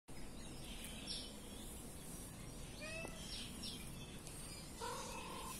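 Small birds chirping in short high notes over steady outdoor background noise. A short pitched call comes about three seconds in, and a louder, slightly longer one near the end.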